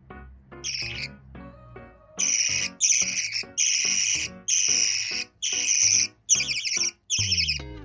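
Half-jumbo budgerigar chick calling: a string of short, harsh calls, just over one a second, with a pause near the start, over quiet background music.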